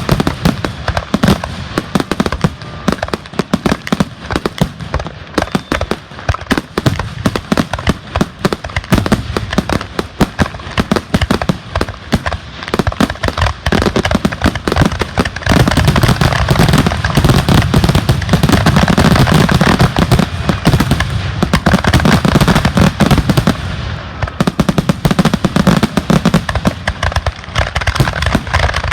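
Fireworks finale: a dense, continuous barrage of rapid shell bursts and crackling, growing louder and denser about halfway through.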